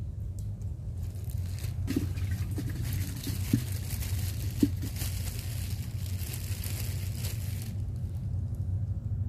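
Rustling and crinkling for about six seconds, with two sharp knocks, over a steady low rumble.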